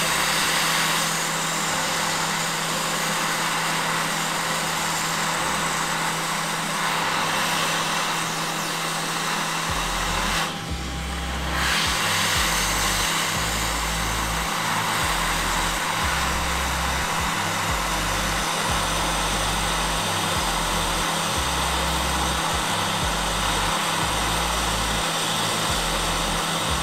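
Hot air rework station blowing a steady hiss of hot air while soldering a replacement surface-mount resistor onto a motherboard. The hiss dips briefly about ten seconds in.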